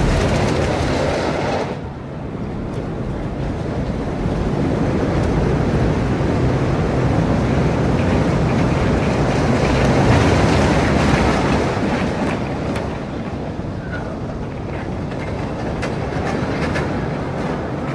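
Roller coaster train running along a steel track, a continuous rumble with clattering wheels. The high hiss drops away about two seconds in, the rumble builds to its loudest about ten seconds in, then eases off.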